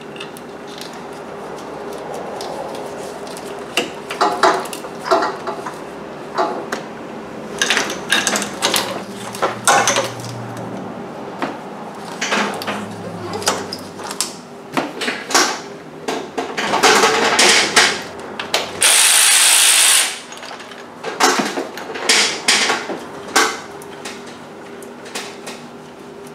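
Hand tools clicking and clanking against metal engine parts while bolts on the V8's valve cover and cylinder head are worked loose, in irregular knocks and rattles. A rush of noise lasting about a second comes about two-thirds of the way through.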